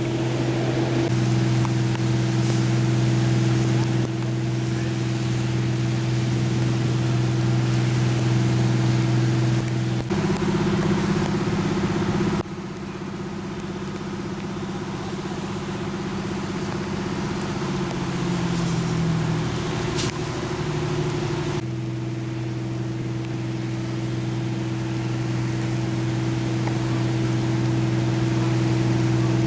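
Fire truck's engine running at a steady hum, with water and scene noise beneath. The pitch drops in steps about two-thirds of the way through, and the sound changes abruptly at a few points.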